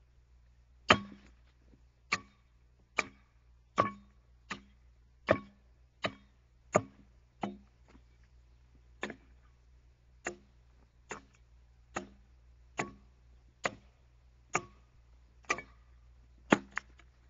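Axe blows chopping into an oak log, steady strokes about one a second with a short pause near the middle, while a railroad tie is hewn by hand.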